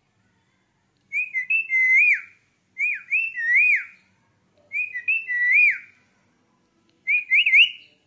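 Male Indian ringneck parakeet whistling the same short phrase of quick rising and falling notes four times, with short pauses between; the last phrase is cut short.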